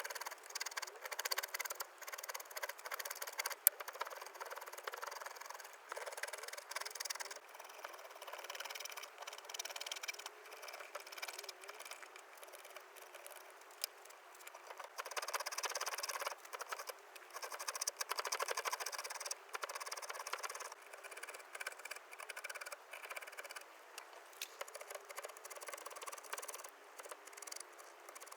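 Hand carving tools cutting and scraping cherry wood in short, irregular strokes, with small clicks and one sharp click about four seconds in.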